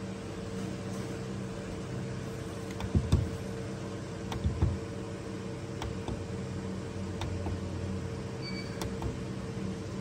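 Steady hum of the small electric motor in a Tornado LED spinning glitter gear knob, turning the propeller that stirs the liquid and flakes. Two low thumps come about three and four and a half seconds in.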